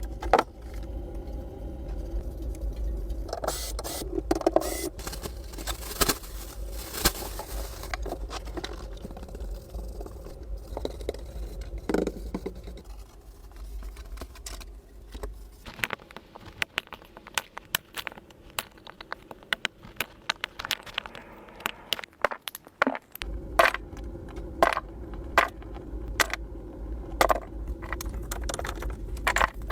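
Irregular scraping with many sharp clicks and knocks over a low steady rumble; the rumble drops out briefly about two-thirds of the way through.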